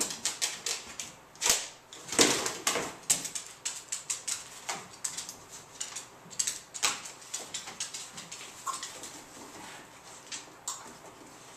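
A beagle's paws and claws clicking and knocking on plastic storage boxes and a hard floor as it searches, in quick irregular taps, with the loudest clatter about two seconds in as a box is knocked over. The tapping thins out over the last few seconds.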